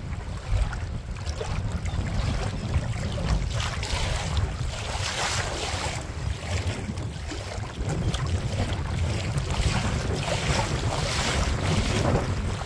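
Wind buffeting the microphone with a heavy low rumble, and choppy water splashing against a moving kayak's bow in repeated surges of hiss, picked up by a camera held just above the water.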